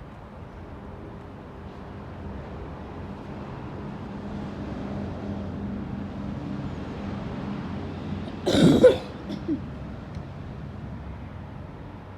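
A person coughs loudly once about eight and a half seconds in, with a smaller follow-up just after, over a steady low engine hum.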